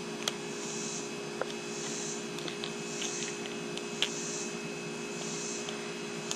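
Steady electrical hum, with a few small sharp clicks and taps as popper flies are picked through in a plastic fly box. The loudest click comes about four seconds in.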